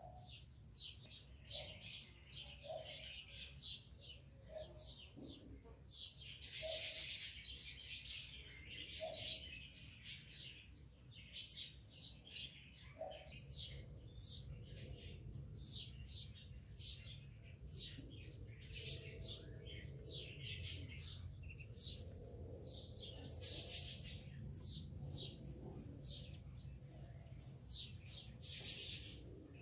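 Small birds chirping: a steady stream of short, high chirps, with louder flurries about a quarter of the way in and again late on, over a low steady hum.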